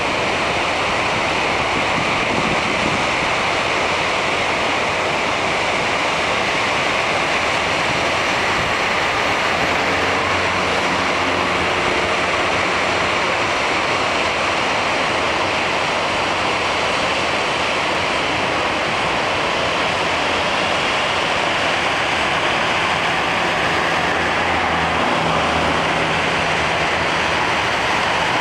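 Floodwater overflowing a dam spillway and cascading down into a rocky gorge: a loud, steady rushing of falling water.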